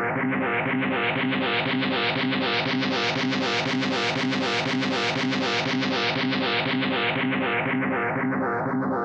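Instrumental music led by guitar, with a steady repeating rhythm. The sound grows brighter toward the middle and turns muffled again near the end.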